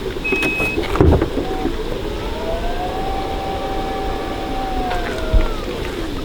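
Steady rush of a flowing stream, with a couple of sharp knocks. In the middle, an engine hum rises in pitch, holds and falls away over about three seconds.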